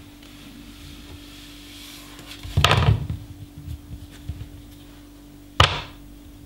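Hand handling sounds at a wooden cutting board: a short cluster of knocks and rubbing a little over two seconds in, then one sharp knock near the end as a lemon is set down on the wooden board. A faint steady hum runs underneath.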